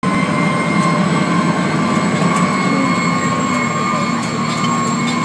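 Emergency vehicle under way, heard from inside the cab: a steady engine and road rumble with a constant high-pitched whine over it.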